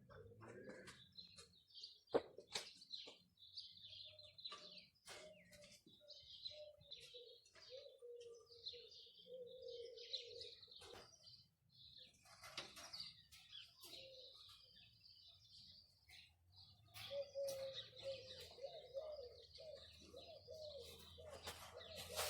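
Faint birdsong: small birds chirping high-pitched throughout, with a lower call repeated again and again, and a few scattered clicks.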